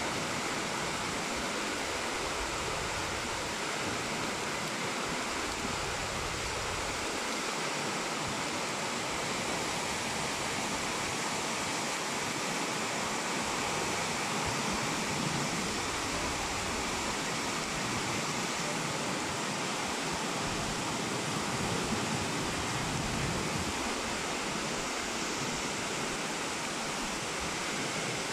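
Heavy rain pouring down in a steady, even rush with no breaks.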